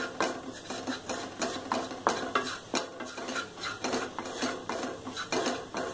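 Wooden spatula scraping and stirring dry spice powders around a non-stick pan, a few quick strokes a second; the spices are being dry-roasted without oil, so there is almost no sizzle.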